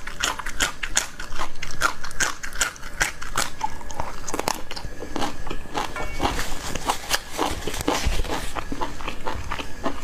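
A person biting and chewing a crisp green vegetable stalk: a quick run of crisp crunches, several a second, growing denser a little past the middle.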